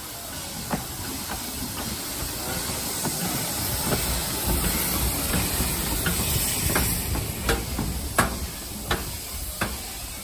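Baldwin 10-12-D narrow-gauge steam locomotive hissing steam, the hiss swelling in the middle. Sharp clicks or knocks come roughly once every two-thirds of a second, the loudest near the end.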